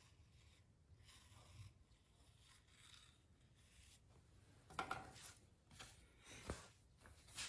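Faint scraping and rubbing of a potter's cutting tool drawn through a soft clay slab along the rim of a plaster mold, trimming off the excess. A few louder scrapes and a sharp click come in the second half.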